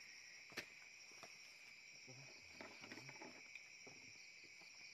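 Faint steady chorus of insects, high-pitched and unbroken. A sharp click about half a second in and a few light clicks and knocks around the middle.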